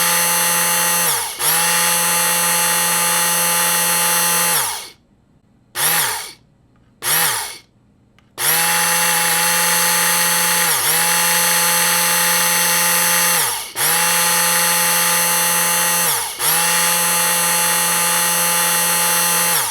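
Electric food blender motor running at speed with a steady whine. Its pitch dips briefly a few times as it is released and pressed again. It stops about five seconds in, gives two short pulses, then runs again steadily and cuts off at the very end.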